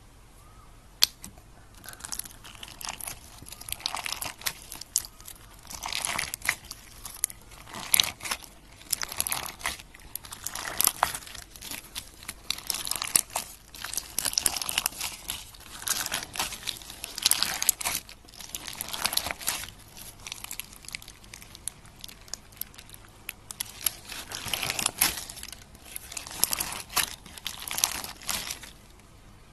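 Clear, textured slime squeezed and kneaded by hand, crackling and clicking in bursts every second or two.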